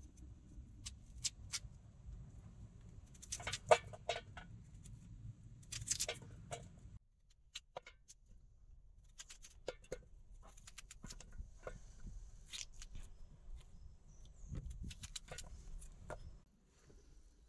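Knife peeling and cutting a raw potato by hand: small scrapes and clicks at irregular intervals, with pieces dropping into a metal pot. A low steady rumble underneath cuts off suddenly about seven seconds in.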